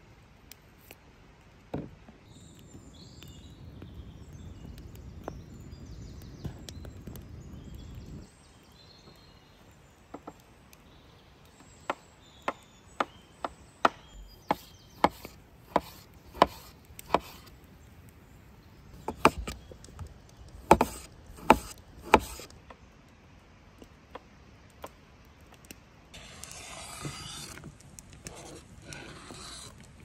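Chef's knife slicing tomatoes on a bamboo cutting board: a run of sharp knocks of the blade hitting the board, about two a second. Near the end there is a few seconds of scraping as the cut pieces are pushed off the board into a wooden bowl.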